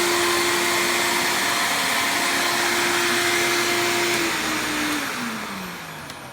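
1994 Eureka Excalibur upright vacuum cleaner running steadily on its power-clean setting, then switched off about four seconds in, its motor whine falling in pitch and fading as it spins down.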